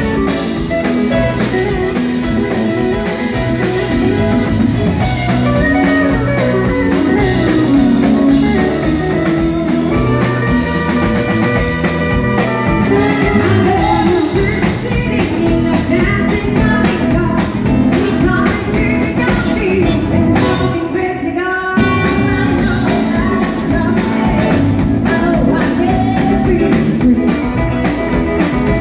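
Live country band playing with a woman singing lead into a microphone, backed by guitars, pedal steel guitar and a drum kit. The band drops back briefly about two-thirds of the way through, then picks up again.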